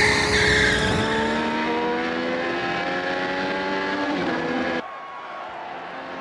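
Race car sound effect: tyres squeal in a smoky wheelspin in the first second while the engine runs high, its pitch rising steadily as the car accelerates. Nearly five seconds in, the sound cuts abruptly to a quieter, duller engine noise.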